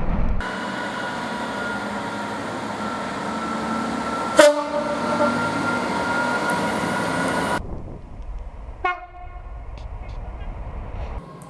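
Train air horn: a short sharp blast about four seconds in over the steady noise of a train running by, which cuts off abruptly. A brief horn toot follows about nine seconds in.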